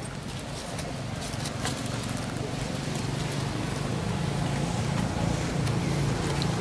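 A steady low motor hum that grows slowly louder, with a few faint clicks and rustles over it.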